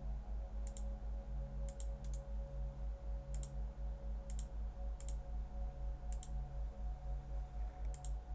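Computer mouse clicking now and then, single clicks and quick double clicks a second or so apart, over a low electrical hum that pulses about five times a second.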